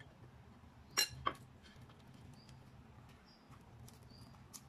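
A metal spoon clinks twice against a ceramic dish about a second in, while a tortilla wrap is being filled with chicken; then quiet handling over a low steady hum, with a few faint short high chirps.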